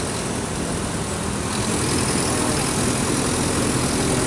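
Mercedes-Benz OF 1722M bus's diesel engine running steadily at mid revs, a little louder from about one and a half seconds in.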